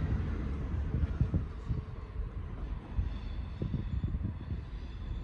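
Class 166 diesel multiple unit pulling out of the station, a low diesel rumble that slowly fades.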